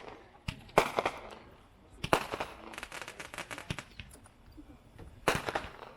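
A 200-gram consumer firework cake, World Class's Grapes Over the Vineyard, firing its shots: a loud burst just under a second in, another at about two seconds and one a little after five seconds. Each burst is followed by a quick run of pops.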